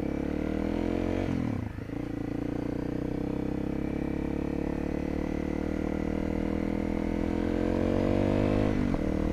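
A Honda CRF dual-sport motorcycle's single-cylinder engine pulling away and accelerating, its pitch climbing, dropping with an upshift about one and a half seconds in, then climbing again slowly until another shift near the end.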